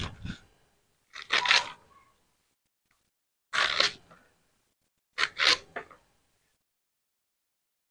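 Fresh spinach being sliced against the curved blade of a boti (Bengali floor-mounted cutting blade): short, crisp cutting sounds about every two seconds.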